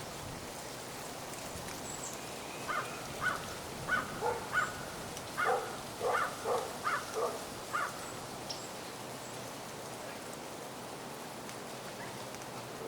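Steady outdoor hiss with a run of about a dozen short bird calls in the middle.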